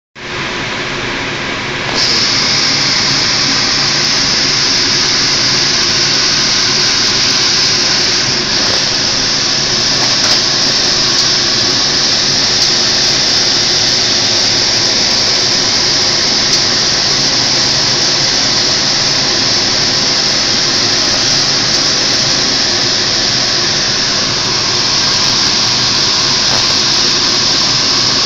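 Portobello mushroom caps sizzling on a hot flat-top griddle: a loud, steady hiss that gets louder about two seconds in.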